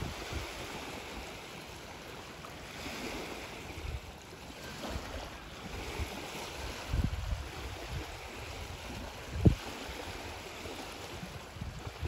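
Wind buffeting the microphone in uneven gusts over a steady hiss, with a small outboard-motor boat passing at a distance. One sharp thump about nine and a half seconds in.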